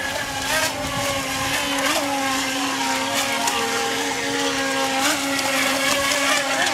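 Brushless electric motors of FT009 RC racing speedboats whining steadily at speed. The pitch dips briefly now and then as the boats turn, and a second, higher whine joins a little over halfway through.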